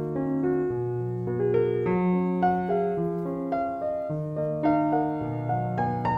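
Background piano music: a steady flow of melody and chord notes.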